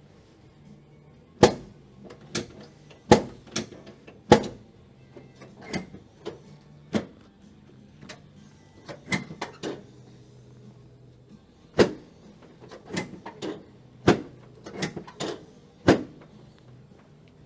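A series of sharp knocks and clacks from a chiropractic hip adjustment, about eighteen of them in irregular groups, over quiet background music.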